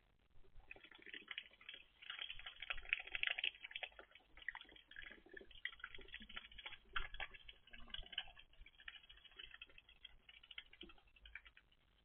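A duck dabbling and pecking with its bill at wet ground: a dense run of rapid, irregular clicks that starts about half a second in and stops near the end.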